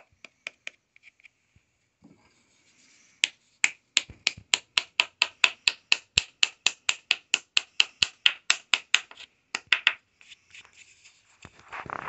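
Quick, even tapping: a wooden-handled tool rapped against a small turned wooden piece, about four sharp taps a second for around seven seconds, starting a few seconds in, with a few light clicks before and some rubbing and handling noise near the end.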